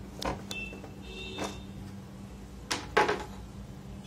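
Knocks and clatter of a fire alarm control panel's front cover being unclipped and lifted off, with two sharp knocks close together about three seconds in.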